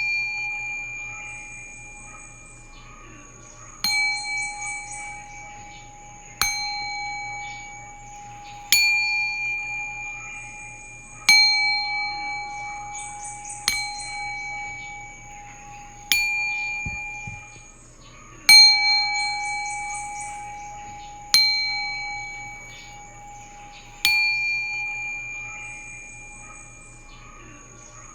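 Singing bowl struck with a mallet nine times, about every two and a half seconds, each strike ringing with a low hum and several higher overtones that slowly fade before the next.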